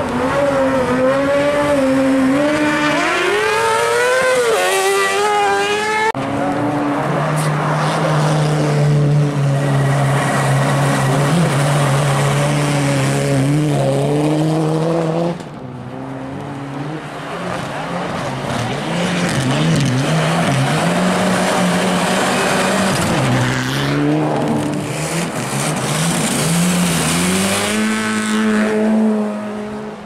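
Race car engines revving hard on an ice track, their pitch climbing and dipping with throttle and gear changes, with one stretch held at steady high revs. The sound changes abruptly twice, about six seconds in and about halfway, as one car gives way to another.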